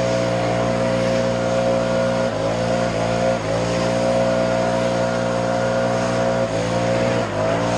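Small petrol engine running steadily at high speed, its pitch dipping briefly and recovering twice in a pair of quick dips.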